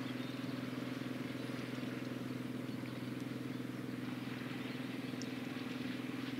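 An engine runs steadily with a low, constant hum that holds one pitch and does not change speed.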